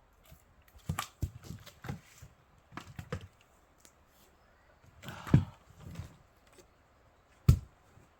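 Fiskars X27 splitting axe striking pine logs to split firewood, with two loud sharp blows about halfway and near the end. Lighter wooden knocks and clatter come in between.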